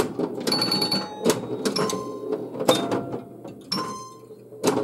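1978 Bally Black Jack pinball machine in play: rapid clicks and clacks from the flippers, bumpers and ball, mixed with short electronic beeping tones from the game.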